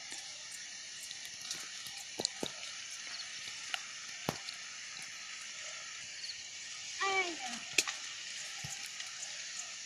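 A steady high hiss of outdoor background noise, with scattered sharp clicks and snaps. About seven seconds in comes a short call that falls in pitch.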